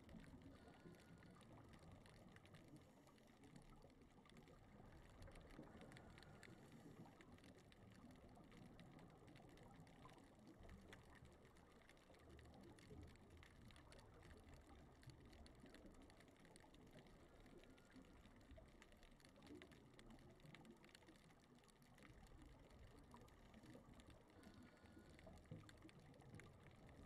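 Faint underwater ambience picked up by a camera resting on the seabed: a low, muffled rush of water with many scattered small clicks.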